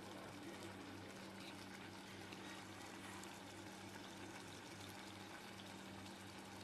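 Thick lobster gravy simmering in a clay pot: faint, steady bubbling with small pops, over a low steady hum.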